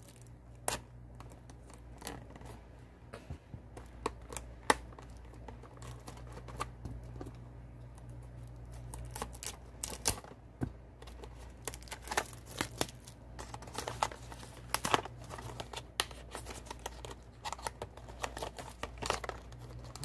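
Packaging of a boxed Bluetooth headset being cut and torn open by hand: scattered crinkles, scrapes and small clicks, busier in the second half. A steady low hum runs underneath.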